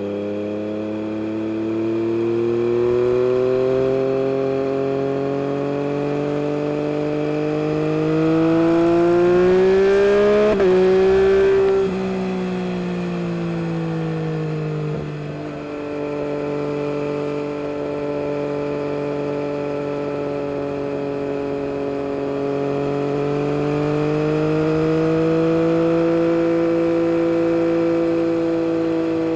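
Motorcycle exhaust of a 2022 Yamaha MT-09 SP's inline three-cylinder engine through an Akrapovic carbon race system, under way. The engine note climbs steadily under throttle for about ten seconds with a brief break near the top, then the throttle closes about twelve seconds in and the note drops away. It holds a steady cruise and rises gently again later on.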